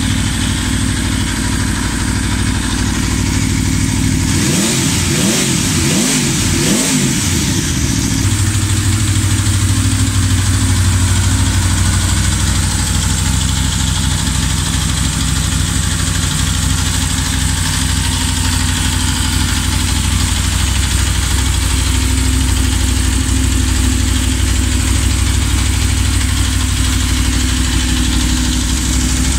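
Aprilia Tuono V4 motorcycle's V4 engine idling, with a quick run of about four throttle blips about four seconds in, then settling back to a steady idle.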